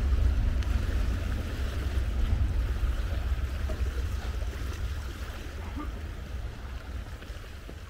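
Wind buffeting the camera microphone: a low rumble that gradually dies down.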